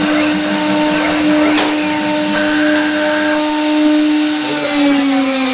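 Several spindles of a multi-head 3-axis CNC wood router running and carving wood: a steady high-pitched motor whine over the noise of the cutters in the wood. Near the end the whine starts to fall in pitch.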